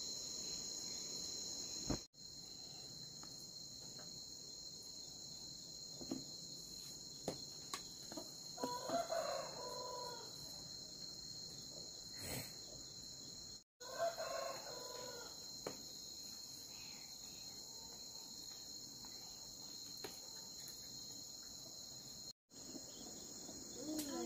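A rooster crowing twice, several seconds apart, over a steady high drone of insects.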